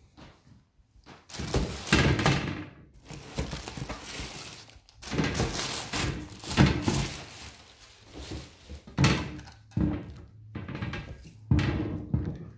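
Tissue paper rustling and crinkling as chunky rubber-soled Balenciaga Track.2 sneakers are handled and taken out of their box, with several dull thunks as the shoes are set down on a glass tabletop.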